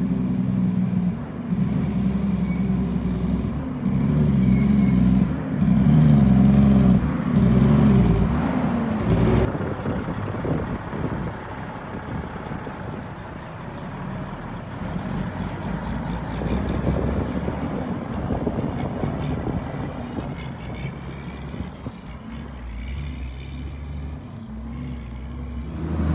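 Heavy diesel dump truck running, its engine note stepping up and down for the first nine seconds or so. A sharp knock comes about nine seconds in, and after it the engine and road noise go quieter and rougher.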